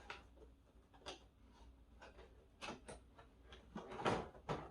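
Faint rustling with a few light taps and clicks from a cardboard collection box and its plastic insert being handled and opened.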